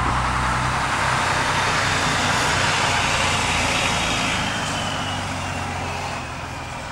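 A Mack tow truck's diesel engine running as it drives past close by, with tyre noise on the wet road. The sound eases off after about four seconds as it moves on, and a faint whine slowly falls in pitch near the end.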